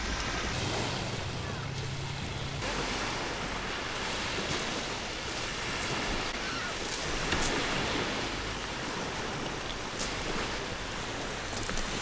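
Small waves breaking and washing over a shingle beach, a steady surf noise with some wind on the microphone. A few sharp clicks in the second half.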